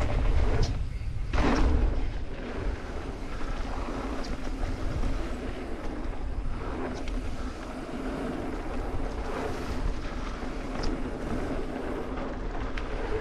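Mountain bike rolling fast down a packed dirt trail: wind rushing over the action camera's microphone and tyre noise, with a few sharp clicks and rattles from the bike. Louder in the first two seconds.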